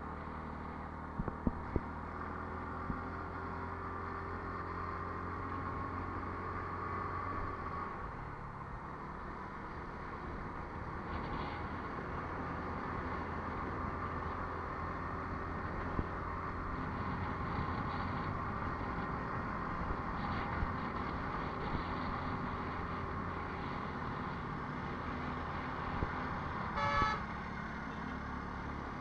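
Vehicle engine running steadily on the road, with road noise. A horn toots once, briefly, near the end.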